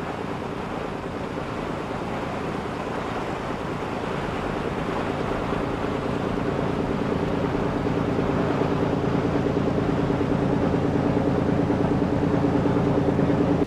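Boat engine running steadily with a rush of water. It grows gradually louder and cuts off suddenly at the end.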